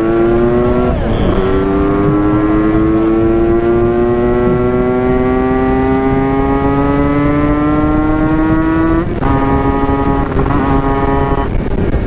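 Two-stroke Kawasaki Ninja RR engine pulling hard under acceleration, its note rising steadily through a long gear. It changes up about a second in and again about nine seconds in, with a drop in pitch, then holds a steady note.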